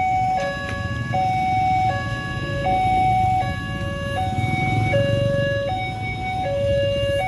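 Railway level-crossing warning alarm sounding, alternating two notes, high and low, each held about three-quarters of a second, with the low rumble of a vehicle going past about halfway through.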